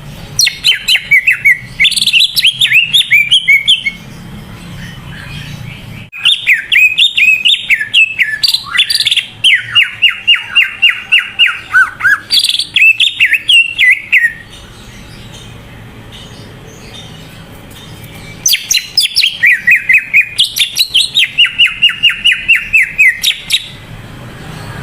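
Cucak ijo (green leafbird) singing in three loud bursts of fast, chattering repeated notes, each several seconds long, with pauses between them. A low hum fills the pauses.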